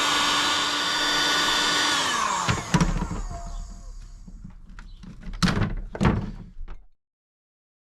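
Heat gun blowing steadily while shrinking heat-shrink tubing onto tyre levers, then switched off about two seconds in, its fan winding down with a falling pitch. A few clunks of tools being handled follow before the sound cuts out.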